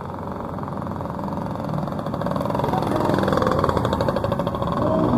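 A motorcycle engine passing close by, getting louder from about two seconds in and staying loud to the end, over the general noise of street traffic.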